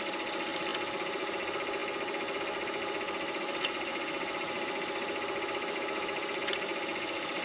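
Midi lathe running steadily, its motor giving an even hum, with a couple of faint ticks.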